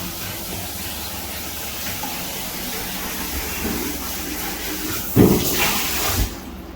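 Water running steadily from a tap into a sink, easing off near the end, with a brief knock about five seconds in.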